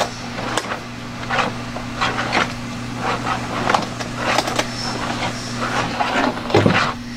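Irregular rustles, scrapes and light knocks of equipment being handled in an aluminium carrying case as an inspection camera's cable is gathered up, over a steady low hum.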